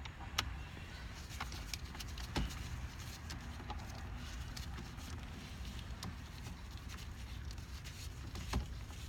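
A few scattered light clicks and taps of small parts and tools being handled at a steering column, over a low steady hum.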